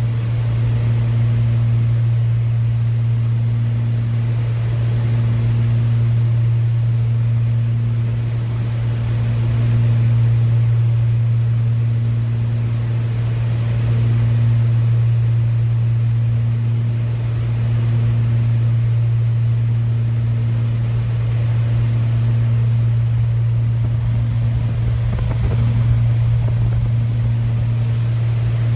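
Machine running with a steady low hum and a fainter higher tone that comes and goes about every two seconds.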